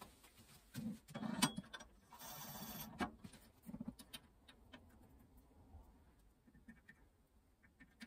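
Faint handling noises as a drill bit in its chuck and a wooden pen blank are picked up: scattered light clicks and knocks, with a short rustle about two seconds in.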